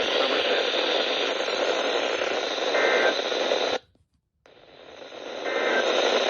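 Radio static: a steady hiss from a radio receiver on a weak signal. It cuts out suddenly about four seconds in, then swells back up over a second or so.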